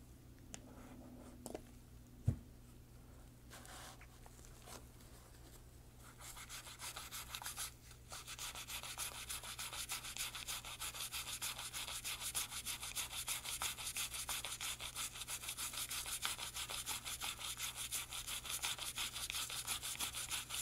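A toothbrush scrubbing lead and carbon fouling off a part of a disassembled .22 rimfire suppressor (SilencerCo Sparrow). The first few seconds hold quiet handling with one sharp knock. From about six seconds in come quick, steady back-and-forth brushing strokes, about three a second.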